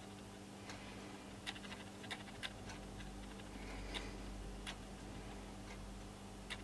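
Faint, irregular small clicks of fingers handling a brass threaded horn fitting on a tape-wrapped metal tube, over a steady low hum.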